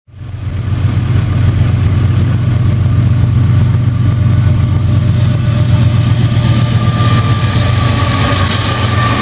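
The lead diesel locomotives of an iron ore train running past, a steady deep engine drone with a growing hiss of wheels on rail. A thin high ring creeps in near the end.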